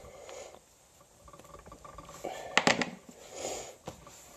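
Quiet handling noises from a small cosmetics bottle and fingers: light scratching and rustling, with a sharp click about two and a half seconds in.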